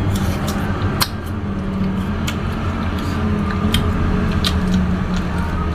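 Steady hiss of rain with a low hum under it, and scattered sharp wet clicks and smacks of people eating fruit.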